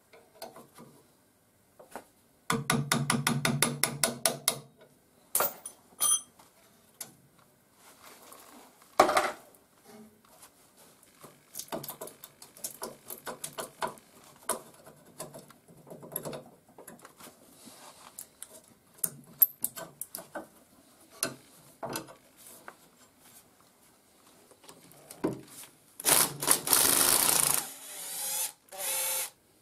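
Cordless impact driver hammering briefly near the end, undoing a nut on a stud of a VW Beetle gearbox's swing-axle side plate. The rest is scattered clinks and knocks of hand tools on the axle, with a run of rapid, even clicks a few seconds in.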